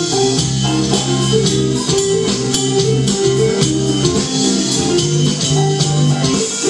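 A small band playing an instrumental number live: a drum kit keeping a steady beat with cymbal strokes, under guitar and a moving bass line.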